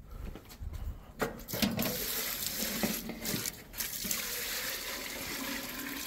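Water poured from an aluminum pot into a large aluminum stockpot of tripe pieces, a steady splashing pour. A couple of knocks come just before the pour settles in, about a second and a half in.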